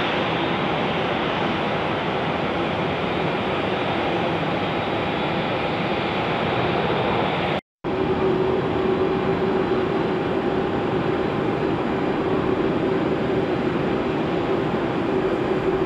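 Jet engines of a taxiing Boeing 737 at low power, a steady rushing hum with a faint whine. After a brief cut about eight seconds in, the same steady rushing hum comes from a taxiing Airbus A380, now with a lower steady tone in it.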